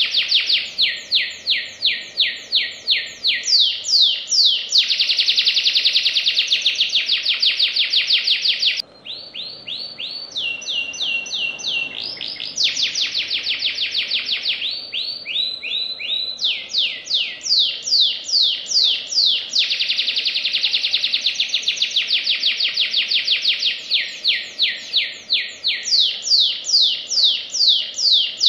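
Domestic canary singing a continuous, fast song: long runs of rapidly repeated downward-sweeping notes and dense rolling trills. Around nine seconds in the song turns softer and higher for a few seconds, then the fast trills return.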